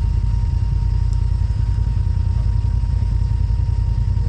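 Side-by-side UTV engine running with a steady low rumble, and a faint steady whine above it.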